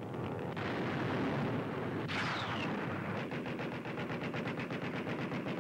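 Shipboard anti-aircraft gunfire: dense, continuous firing that settles from about three seconds in into rapid automatic fire at roughly six shots a second. A brief falling whine sounds about two seconds in.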